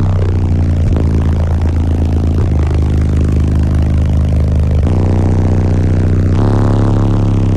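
Two Resilient Sounds Platinum 15-inch subwoofers in a car trunk playing bass-heavy music very loud, heard from inside the cabin: deep sustained bass notes that change pitch every second or two.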